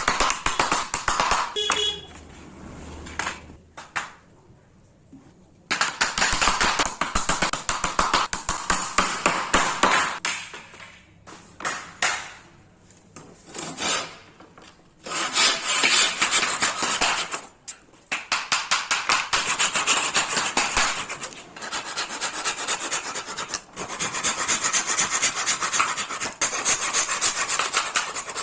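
A hand tool scraping on wood in fast back-and-forth strokes, in runs of several seconds broken by short pauses.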